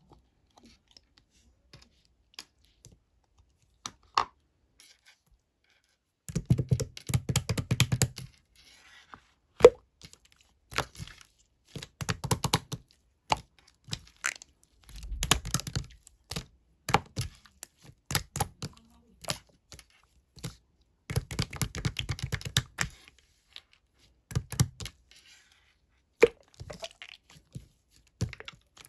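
Bursts of rapid clicking and knocking, each a second or two long, with single sharp knocks between.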